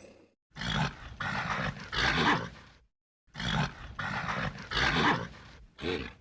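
Bull snorting and breathing: two runs of three loud, noisy snorts with a short silence between them, and a brief fourth snort near the end.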